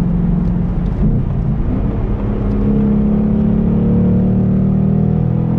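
Ford Mustang Bullitt's 5.0-litre V8 pulling on the road, heard from inside the cabin: a steady engine note that breaks briefly about a second in, then climbs slowly in pitch as the car accelerates.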